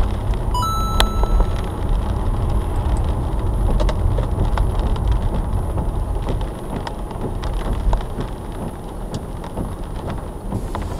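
Car driving on a wet road, heard from inside the cabin: a steady low rumble of engine and road noise with tyre hiss, and scattered light ticks and rattles.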